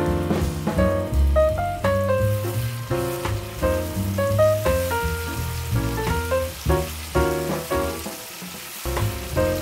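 Instrumental background music with a bass line, over red chili balado paste sizzling in a frying pan as a spatula stirs it. The music's bass drops out briefly near the end.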